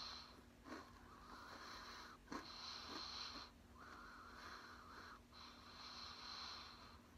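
Soft, even breaths in and out through the nose while chewing a mouthful of candy bar with the mouth closed, about five breaths in a row, with a few faint clicks from the mouth early on.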